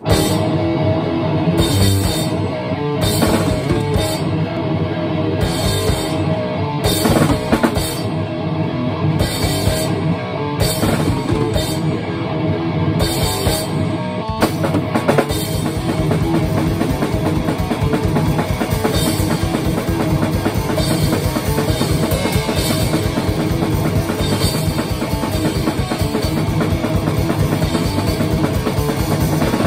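A rock song played live on electric guitar and drum kit. The first half is stop-start, with hits and pauses; from about halfway the drums settle into a fast, even beat.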